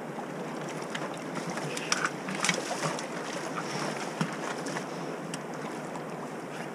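Steady wind and water noise out on the water, with a few sharp clicks and knocks about two seconds in and again near four seconds.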